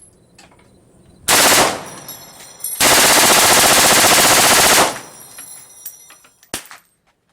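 Belt-fed machine gun firing on full automatic: a short burst, then a longer burst of about two seconds with evenly spaced rapid shots, a weapon rated at about 1,000 rounds a minute. A single sharp knock follows near the end.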